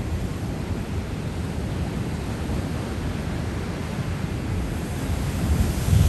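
Ocean surf breaking along a rocky shore, a steady low rumble with wind buffeting the microphone. Near the end a wave breaks against the rocks close by and the sound gets louder.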